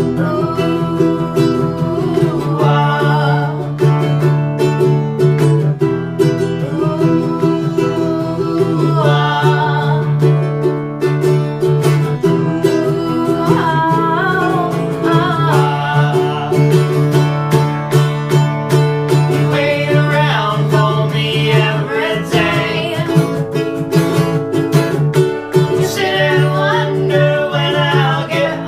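Acoustic folk music with no lyrics sung: plucked strings strum a steady accompaniment under a wavering, bending lead melody line.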